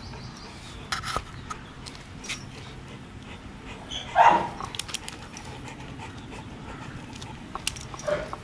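Dog panting steadily, with a few light clicks and one short, louder sound about four seconds in.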